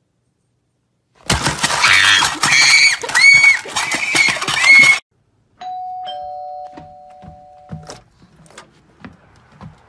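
A loud burst of noise with several short, high squeals that rise and fall, lasting about four seconds. About five and a half seconds in, a doorbell chimes two tones, high then low, each ringing on for about two seconds.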